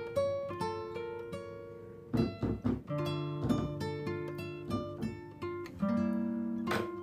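Background music: a melody of plucked acoustic guitar notes, each ringing and fading.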